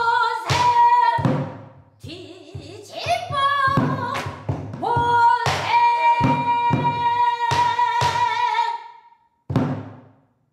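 Dramatic background music: a singing voice holds long, wavering notes over repeated drum strikes. It stops near the end with a final strike.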